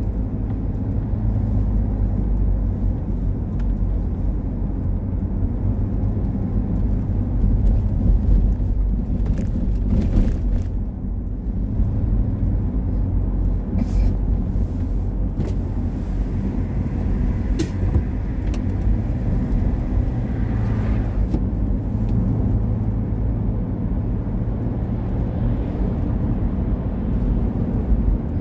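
Steady engine and road rumble of a car driving, heard from inside the cabin, with a few brief faint clicks.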